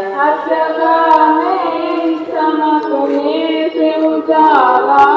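A solo voice singing a naat, drawing out a long ornamented line whose pitch glides and wavers between the words.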